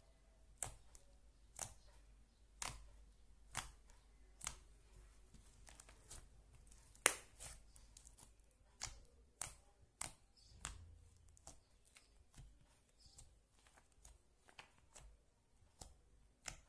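Butter slime being pressed and pulled by hand, giving sharp sticky clicks and pops about once a second, with one louder pop about seven seconds in.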